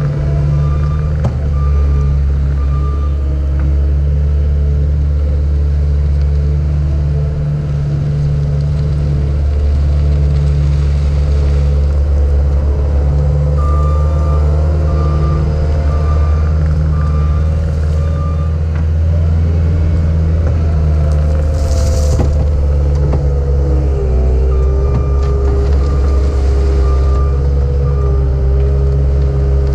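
Cat 279D compact track loader's diesel engine running steadily, with its backup alarm beeping in three stretches as the machine reverses. A short hiss comes about 22 seconds in, and the engine note shifts a little just after.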